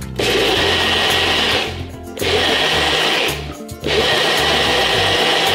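Countertop blender running in three pulses of about a second and a half each, chopping chunks of bread in liquid into a slurry.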